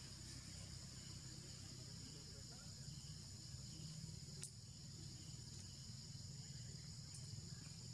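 Faint, steady, high-pitched insect drone with a low hum underneath and a single sharp click about halfway through.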